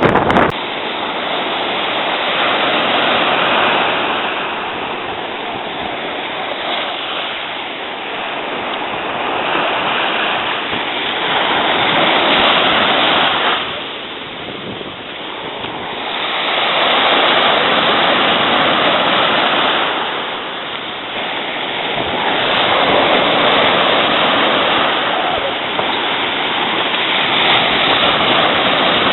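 Ocean surf breaking and washing onto the beach, a steady rush that swells and fades every several seconds as the rollers come in; the rollers are driven by the passing hurricane.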